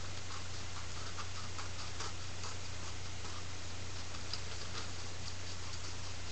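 Scissors cutting paper: faint, irregular snipping clicks over a steady low hum.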